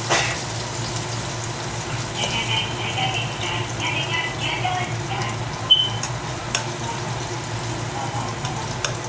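Zucchini frying in a pan with a steady sizzle. Small scattered clicks run through it, and there is one sharp clink a little past halfway.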